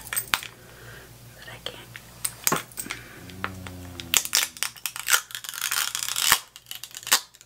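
Packaging of a loose setting powder being opened by hand: scattered clicks and taps, then a busier stretch of tearing, crinkling and clicking from about four seconds in.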